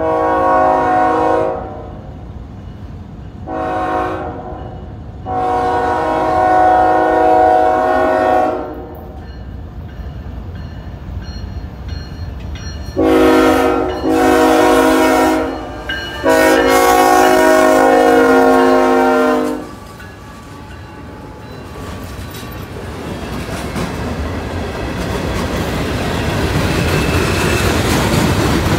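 Diesel freight locomotive's chime air horn sounding a string of blasts as it approaches: three blasts, the last held about three seconds, then after a pause three more, the last again held about three seconds. The horn then gives way to the rising rumble and wheel clatter of the freight train rolling past close by, loudest near the end.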